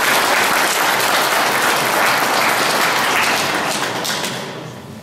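Audience applauding, fading away over the last second or so.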